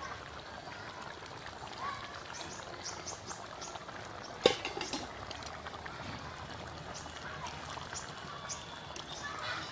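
Fish and potato curry bubbling in an open metal pot, with one sharp metal clank about halfway through and a metal spatula stirring near the end.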